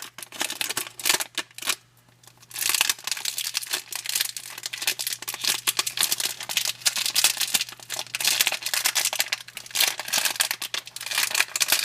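Plastic wrapping being crinkled and torn off a new speed cube: a dense run of crackling, with a short pause about two seconds in.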